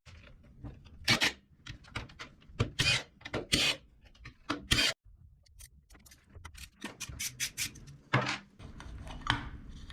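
Irregular clinks, clicks and scrapes of hand tools on metal two-stroke engine parts during a teardown. The loudest clusters come about a second in, between three and five seconds, and about eight seconds in.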